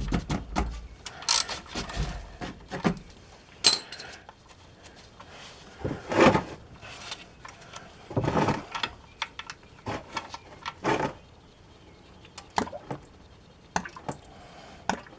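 Scattered metal clinks and knocks of a 10 mm socket and wrench working an oil drain plug loose, with handling noises in between.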